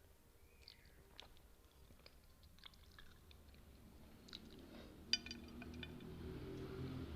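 Close-miked chewing of spicy noodles and kimchi, with scattered soft mouth clicks. There is a sharp clink a little past halfway, and a denser, louder eating sound builds over the last two seconds.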